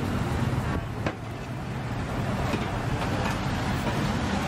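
Road traffic passing on a street, a steady low rumble and noise of car engines and tyres, with a sharp click about a second in.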